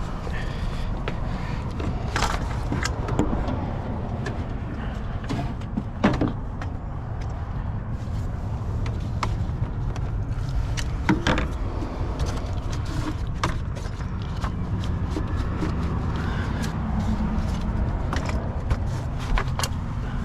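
Scattered plastic clicks and knocks as the engine air intake duct is fitted back into place, over a steady low hum.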